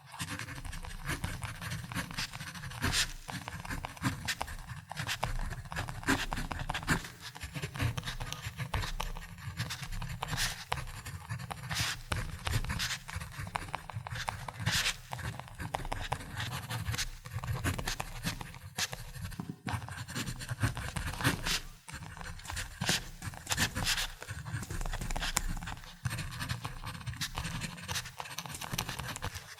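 Ballpoint pen writing on paper: continuous scratchy strokes in quick irregular runs, with short pauses between words.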